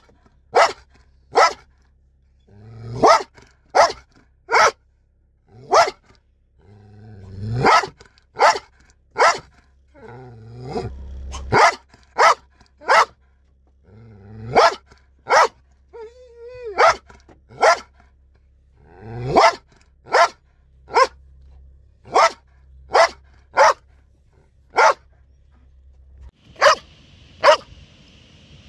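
Belgian Malinois barking aggressively in short, sharp single barks, roughly one or two a second. Several barks are led in by a low rising growl, and there is a brief wavering whine about sixteen seconds in.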